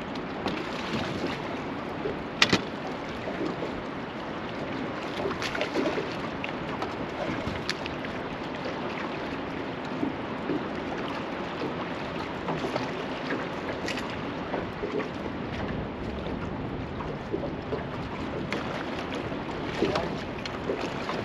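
Steady rush of river water and wind around a small fishing boat's hull, with a few sharp knocks, the loudest about two and a half seconds in and another around fourteen seconds in.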